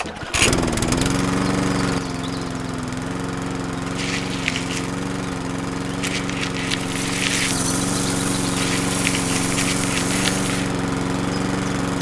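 Small DC electric motor of a homemade miniature sunflower-seed dehulling machine switching on, rising in pitch, and running with a steady hum. Sunflower seeds poured into the hopper rattle through it in three spells as they are hulled.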